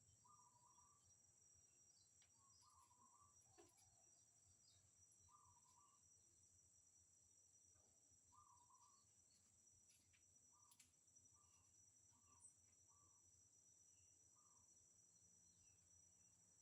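Very faint outdoor ambience: a steady high-pitched insect drone, like crickets, with short low calls repeating every second or two and a few soft clicks.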